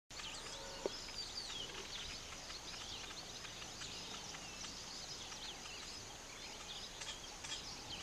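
A chorus of weaver birds chirping and chattering, many short high calls overlapping without a break, with a single short knock about a second in.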